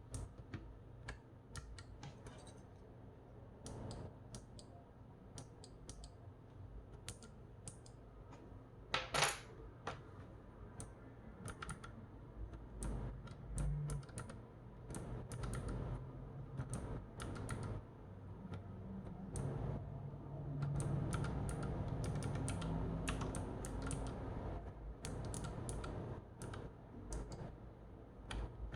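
Typing on a Keychron K1 SE low-profile mechanical keyboard: irregular key clicks throughout, with one louder clack about nine seconds in, over a low hum.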